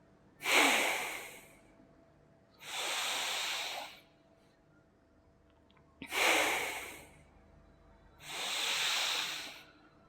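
A man doing slow bhastrika pranayama: long, deep breaths drawn in and pushed out, four loud rushes of air in turn. Each lasts about a second and a half, with short quiet pauses between them.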